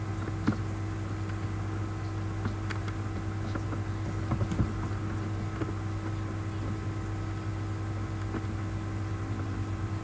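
Steady low electrical hum and hiss of room noise picked up by the microphone, with a few faint clicks: one about half a second in and a small cluster about four and a half seconds in.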